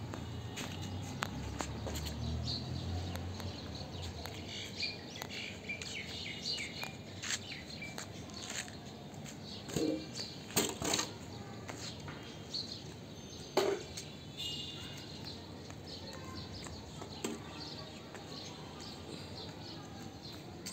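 Outdoor ambience with birds chirping on and off and scattered light knocks and scuffs, a few louder ones about ten and fourteen seconds in.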